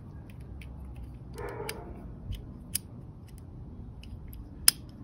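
Small clicks and ticks of a Glock 26's parts being handled as the recoil spring assembly is fitted into the slide, with one sharp, louder click near the end.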